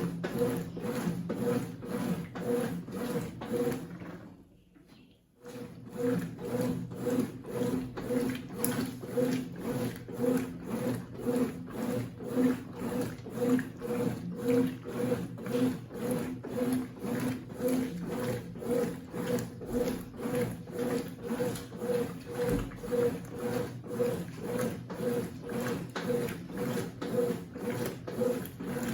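Consul 8 kg top-load washing machine agitating a single-bed bedspread: a rhythmic churning of repeated strokes over a motor hum. About four seconds in it stops for a moment, then starts up again.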